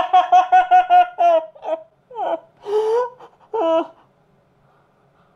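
A man laughing hard: a rapid run of high-pitched "ha-ha" bursts, then a few longer, drawn-out laughs and breaths, stopping about four seconds in.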